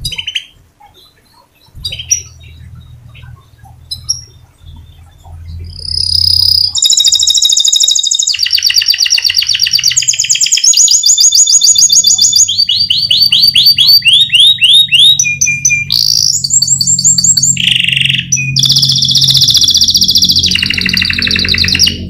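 Domestic canary singing a long rolling song: a few scattered chirps, then from about six seconds in a continuous run of rapid trills of repeated notes, switching to a new phrase every second or two.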